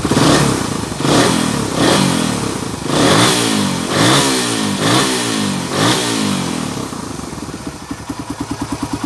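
Suzuki Raider 150's single-cylinder four-stroke engine revved in about seven quick throttle blips, roughly one a second, each rising and falling in pitch, then settling back toward idle near the end. The engine has just been repaired for hard starting and a ticking noise.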